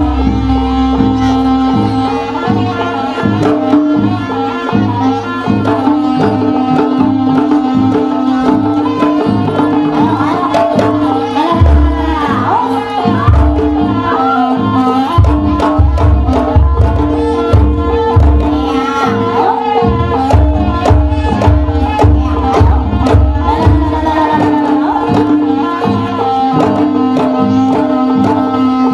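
Live jaranan gamelan music: kendang hand drums beating a quick rhythm over gongs and long sustained melodic tones.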